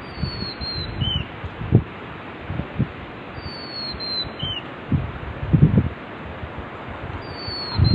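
A bird gives a short, high, falling whistled call followed by a lower note, repeated three times about every three and a half seconds. Underneath is a steady rushing noise from the river, with irregular low buffeting of wind on the microphone.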